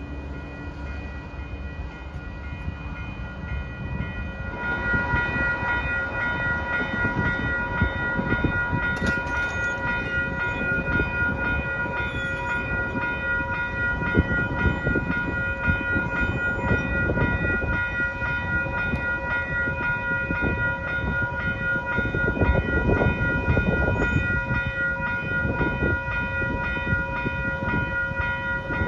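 Railroad grade-crossing warning bell ringing steadily, over a low, uneven rumble. For the first few seconds, the fading engine of a departing Metrolink train is heard before the bell starts.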